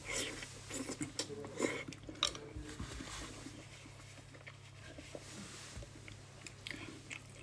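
Someone eating instant noodles: utensils clinking lightly against a bowl, with chewing and small mouth sounds, busier in the first couple of seconds.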